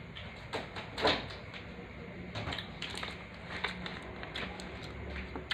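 Scattered light knocks and clicks of household objects being handled and set down, the loudest about a second in, over a faint steady low hum.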